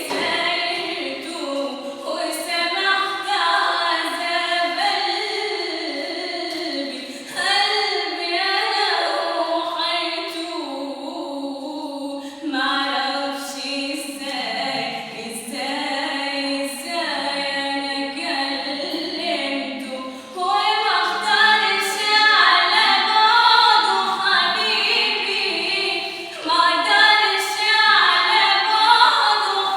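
A woman singing an Arabic song solo and unaccompanied, in long phrases of wavering, held notes broken by brief breaths.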